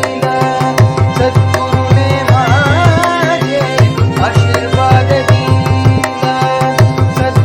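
Marathi abhang bhajan music: harmonium holding sustained notes over a continuous mridangam rhythm from a metronome app. A singing voice comes in with ornamented, wavering phrases about two to three seconds in.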